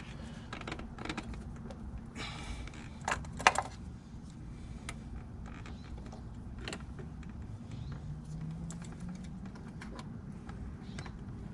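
Heater hose quick-connect fitting being worked onto the Y-connector: scattered clicks and plastic rattles, with two sharp clicks about three seconds in as the fitting locks into place.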